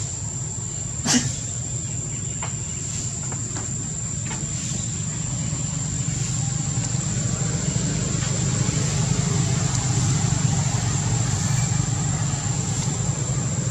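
A steady low engine drone that grows louder in the middle, over a constant high-pitched insect buzz, with one sharp knock about a second in.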